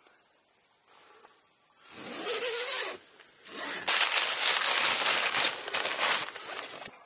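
Tent fabric rustling and rasping as it is handled, in two stretches: a short one about two seconds in, then a longer, louder one of about three seconds from about halfway.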